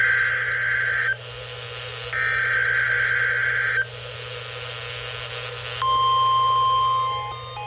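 EAS SAME header data bursts from a NOAA Weather Radio broadcast: two harsh warbling bursts about a second and a half long, a second apart. About six seconds in, the steady 1050 Hz weather radio alert tone starts, and short stepping beeps begin near the end.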